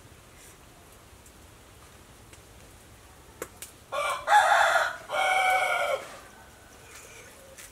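A rooster crowing once about four seconds in, a loud call in two parts lasting about two seconds.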